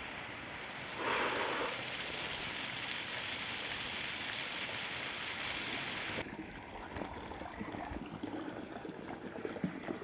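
Steady rush of a small waterfall's water. The rush drops suddenly and becomes thinner and quieter about six seconds in, with a few light clicks after.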